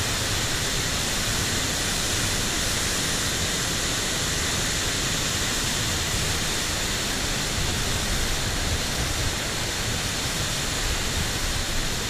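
Steady noise of a tall waterfall pouring over a canyon cliff, mixed with strong wind buffeting the microphone.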